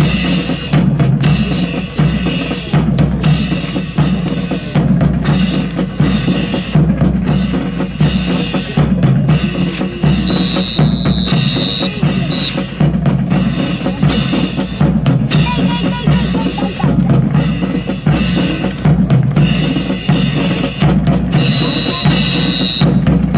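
Marching drum cadence: bass drum and snare keeping a steady beat. A steady high tone is held for about two seconds twice, once midway and once near the end.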